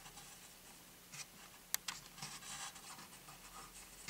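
Faint handling noise: light scratching and rustling with a few small sharp clicks, over quiet room tone.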